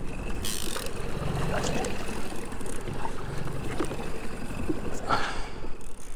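Wind and choppy water around a fishing boat over a steady low motor hum, as a hooked fish is reeled in. A short hiss of wind or spray about half a second in.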